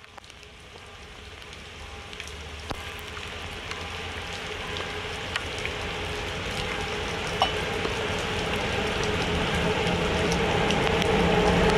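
Rain falling, with scattered sharp drips close by, as an HŽ class 1141 electric locomotive approaches hauling a passenger train. Its hum and rumble grow steadily louder throughout.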